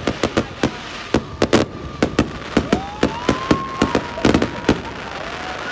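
Fireworks going off: a quick, irregular string of sharp bangs and cracks that stops about a second before the end.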